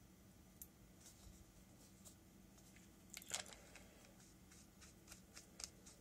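Faint small clicks and scrapes of an Aspire Mini vape tank being handled and screwed onto a box mod's threaded connector, with one louder scrape about three seconds in and a run of small ticks near the end. A faint steady hum lies underneath.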